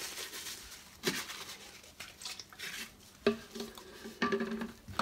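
Plastic over-ear headphones handled in a ceramic washbasin: a few light knocks of the headphones against the basin, about a second in and again after three seconds, with quieter handling and rustling between.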